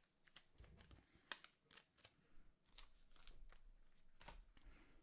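Faint, scattered clicks and crinkles of trading-card packs and cards being handled.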